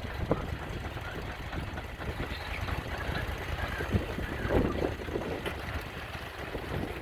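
Mini skid steer loader engine running steadily, with a few short knocks about four to five seconds in.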